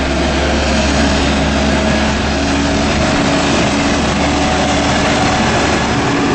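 2003 Case 580M backhoe loader's diesel engine running steadily with a deep hum and a mechanical clatter, pitch unchanging.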